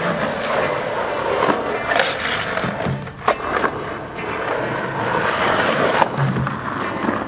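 Skateboard wheels rolling on concrete, a steady rough rumble, broken by several sharp clacks of the board hitting the ground, with music underneath.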